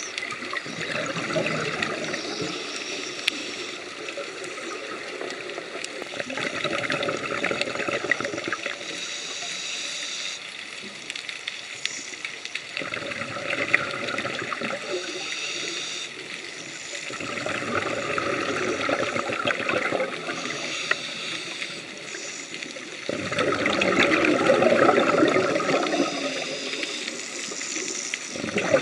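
Scuba diver breathing through a regulator underwater: about five long gurgling streams of exhaled bubbles, with quieter hissing between them.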